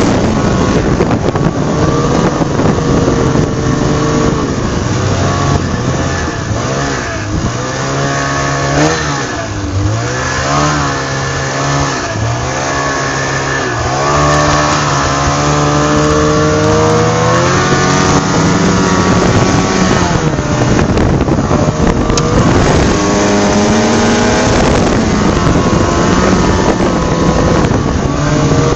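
A car engine revving up and down over and over, its pitch rising and falling every second or two, with a constant rushing noise underneath.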